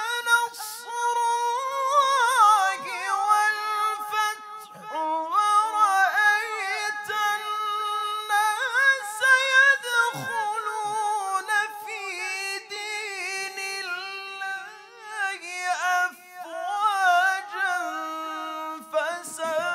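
Male Quran reciter chanting unaccompanied in a high register, holding long melodic notes with wavering, ornamented pitch and short breaks between phrases.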